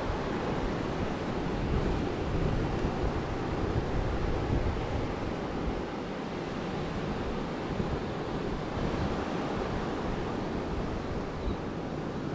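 Ocean surf washing on a beach, a steady rushing noise, with wind buffeting the microphone.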